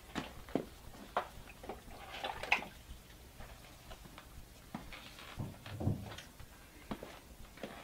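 Handling noise of plastic mixing bowls: scattered light clicks and knocks as raw venison chunks are tipped from one bowl into another on a kitchen scale, with a couple of duller thumps about two-thirds of the way through.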